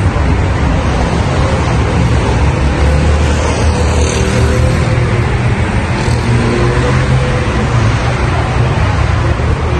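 Steady road traffic noise: a continuous low rumble of passing cars under an even hiss of road noise.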